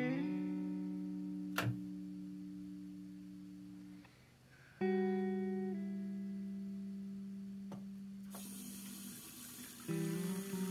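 Background music of guitar chords, each left to ring and fade, with a new chord about every five seconds and a single sharp click about one and a half seconds in. Near the end a bathroom tap starts running into the sink, a steady hiss of water under the music.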